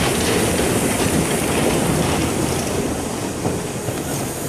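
Wheels of a narrow-gauge train's wagons and brake van rolling past close by, rumbling and clattering on the rails, easing slightly near the end.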